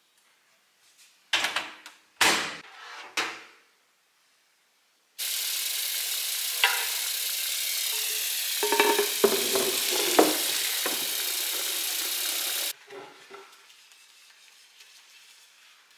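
Kitchen tap running steadily into a sink of foamy dish-soap water for about seven seconds, with a few knocks and clinks as the glass microwave turntable goes into the water; the tap shuts off suddenly. Before it come three sharp knocks, and after it faint scrubbing of the glass turntable with a sponge.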